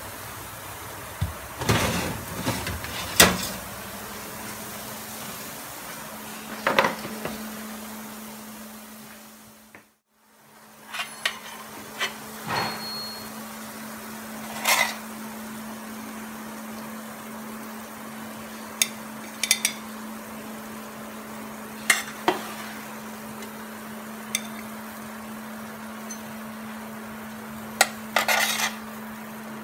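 Oven door and metal rack clattering open, then a metal spatula scraping and clinking on a metal baking tray as roasted potato pieces are lifted onto a plate. The clinks come singly every few seconds over a steady low hum.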